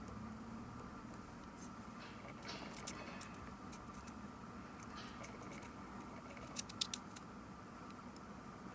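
Faint clicks and light scraping of small parts and hand tools being handled while working on a Canon PowerShot S110 compact camera, with a quick run of sharp clicks near the end.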